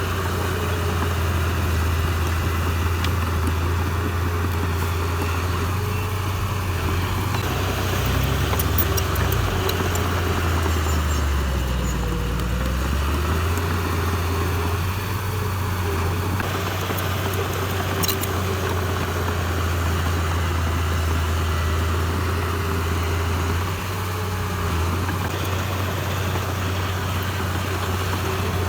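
Heavy earthmoving machine's diesel engine running steadily. Near the middle its pitch dips briefly and comes back up.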